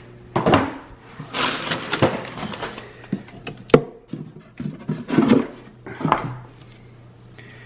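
Unboxing handling noises: packing material rustling and items knocking against the gift crate as things are lifted out, with one sharp knock about three and a half seconds in.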